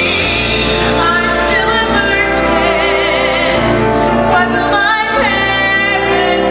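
A woman singing solo into a microphone with vibrato, over sustained instrumental accompaniment.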